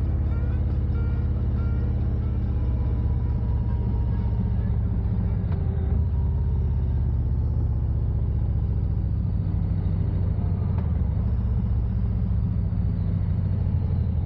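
Vehicle engine running steadily at an even speed, a constant low drone with no revving.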